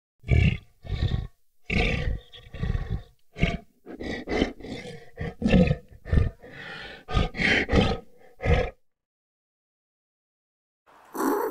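Tiger roaring and growling: a quick run of about a dozen short, loud roars, roughly two a second, which stops after about nine seconds.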